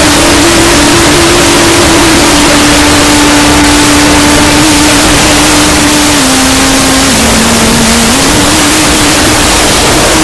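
Deliberately overdriven, clipped 'earrape' audio: a harsh, very loud hiss across all pitches with one held tone underneath that steps down twice in the second half and then back up.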